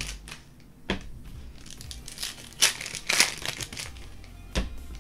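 Foil trading card pack wrappers crinkling and tearing as packs are opened by hand, in short bursts: once about a second in, a cluster in the middle and once more near the end.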